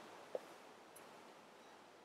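Near silence: a faint steady hiss, with one brief faint blip about a third of a second in.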